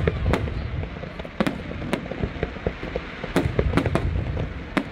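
Aerial firework shells bursting in quick succession: sharp bangs every half second to a second, with smaller pops and crackling between them over a low rumble.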